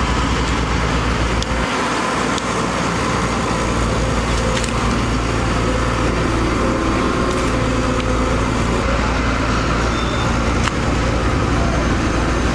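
Samsung wheeled excavator's diesel engine running steadily under load as it digs and swings a bucket of dirt, with a few sharp clanks.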